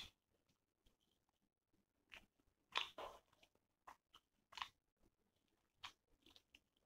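Close-miked chewing and lip-smacking of a mouthful of chicken curry and rice: scattered short, wet mouth clicks, the loudest cluster about three seconds in.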